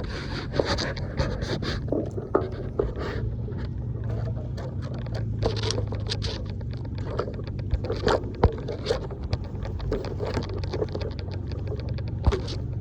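Seawater sloshing and slapping among the pilings under a wharf, with irregular clicks, knocks and splashes, over a steady low hum.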